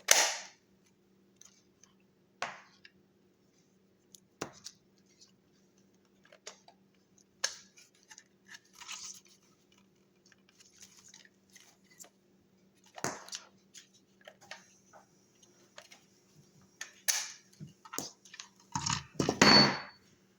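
Scattered clicks, taps and rustles of plastic and packaging being handled, with a louder cluster of handling noise near the end, over a faint steady low hum.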